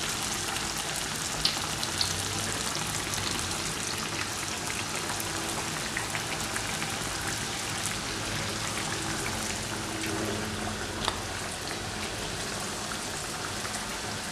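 Mandazi dough pieces deep-frying in hot vegetable oil in a metal wok: a steady sizzling hiss with scattered crackles and pops, and a few sharper ticks.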